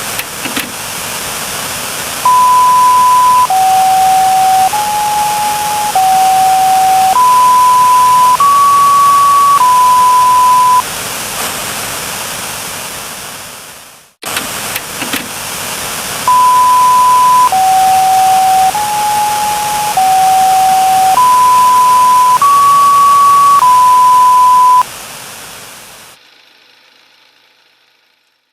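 Mock Emergency Alert System alarm: a short melody of seven held electronic beep tones, each a little over a second long, stepping down and back up in pitch, over steady static hiss. The melody plays twice, with a brief dropout between, and then the static fades away to silence.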